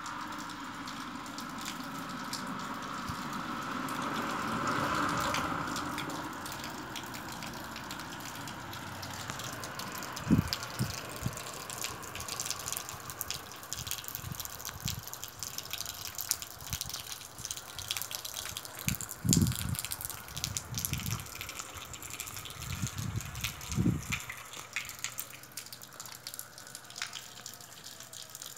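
Rain falling and dripping, a steady wash with many small taps of drops. A few low thumps break in between about ten and twenty-four seconds in.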